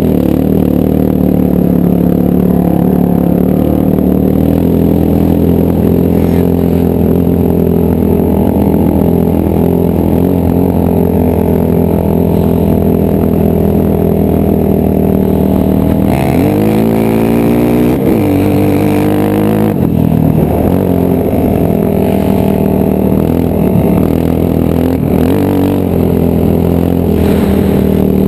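Yamaha Raptor quad's single-cylinder four-stroke engine running steadily under throttle, with wind noise on the microphone. About 16 seconds in it revs up in a rising climb, then drops back twice in the next few seconds.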